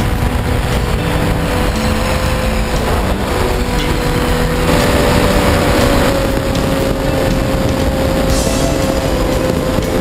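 Electric motor and propeller of a Multiplex FunCub RC plane running in flight with a steady whine, under heavy wind rush over the onboard camera's microphone. The pitch wavers and rises slightly, and the sound grows a little louder for a second or so about five seconds in.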